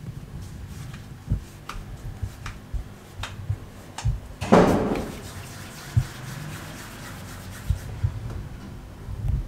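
Hands shaping soft dough balls and dusting them in a steel bowl of dry flour: soft rubbing and small knocks, with one louder rustling burst about four and a half seconds in.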